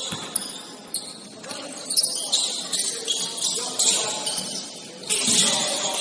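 Basketball game sounds in a gym: a ball bouncing on the court several times at uneven intervals, sneakers scuffing on the floor, and faint players' voices.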